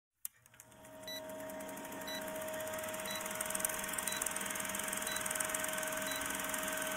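Film countdown leader sound effect: an old film projector's steady whirr and fast clatter, fading in over the first second, with a short high beep about once a second.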